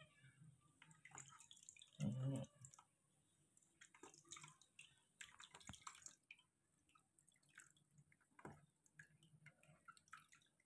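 Faint water dripping and trickling from a cupped hand into a shallow plastic tub while a baby monkey is bathed, with scattered small drips throughout and one short louder sound about two seconds in.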